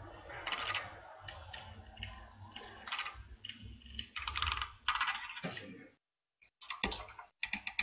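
Battery-powered mini-mixer whipping cream in a glass beaker: the spinning whisk clicks and rattles against the glass in repeated bursts. The sound cuts out briefly about six seconds in.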